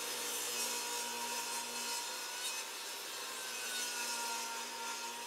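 DeWALT DWE7485 table saw running with its blade cutting through wood: a steady saw whine over the sound of the cut.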